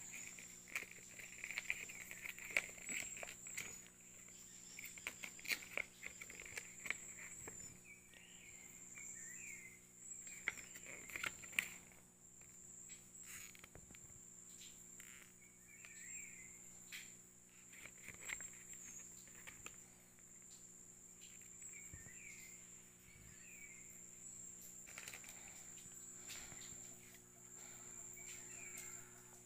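Faint rustling and light clicks of a paper instruction leaflet and a plastic phone holder being handled, over a steady high-pitched insect trill.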